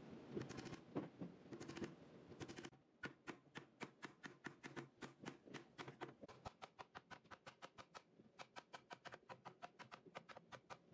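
Light wooden knocks and handling, then from about three seconds in a quick, even run of light taps, about five a second, from a wooden mallet knocking two dowel-jointed boards together at the edge.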